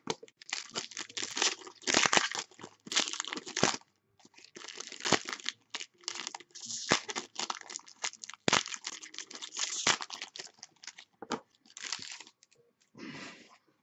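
A trading-card pack's shiny wrapper being torn open and crumpled by hand, in irregular bursts of crinkling and crackling with short pauses.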